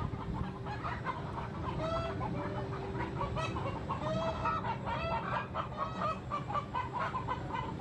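Chickens clucking over and over, with a few longer rising-and-falling calls among quick clucks: alarm calls at grisons prowling in the thicket below their roost.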